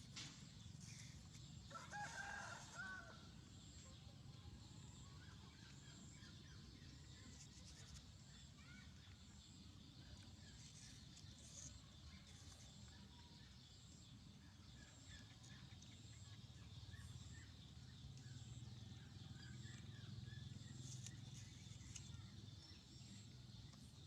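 A rooster crowing once about two seconds in, faint and distant, over quiet outdoor background noise.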